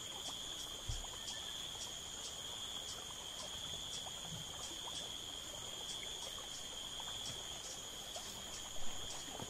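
Steady insect chorus: a continuous high-pitched trill with a second, faster ticking chirp repeating about three times a second. A soft low thump about a second in.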